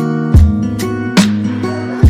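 Instrumental music with a guitar, a bass line and a steady drum beat.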